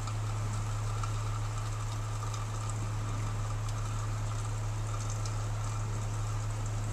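A steady low hum under a faint, even hiss.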